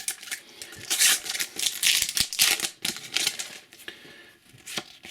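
Sticker packets and stickers being handled: a run of crinkling and rustling with small ticks, busiest about one to three seconds in.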